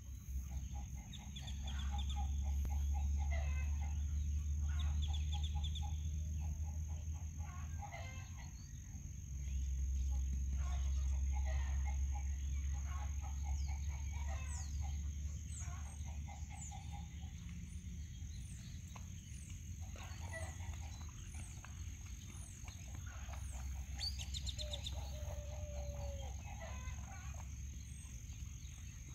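Wind buffeting the microphone in long gusts, loudest in the first half. Under it, short runs of rapid pulsed animal calls repeat again and again, with a few high falling chirps in the second half and a steady high-pitched tone beneath everything.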